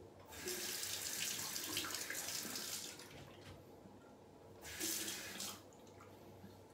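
Water running from a bathroom sink tap in two spells: a first run of about two and a half seconds, then a shorter run of about a second starting some four and a half seconds in.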